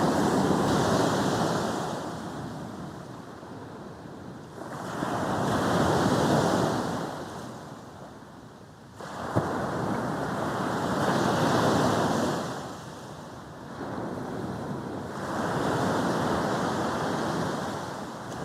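Sea waves breaking and washing up a beach: surf swelling and fading about every five seconds, four times, with a short sharp click about halfway through.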